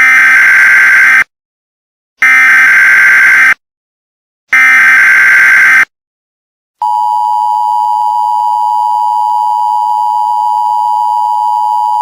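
Emergency Alert System tones: three buzzing bursts of SAME header data, each a little over a second long and about a second apart, then the steady two-tone attention signal starting about seven seconds in. The header bursts and attention tone announce a new emergency alert and come just before its spoken message.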